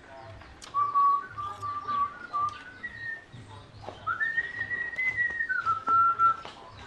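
A person whistling a slow tune in long held notes that glide up and down in pitch.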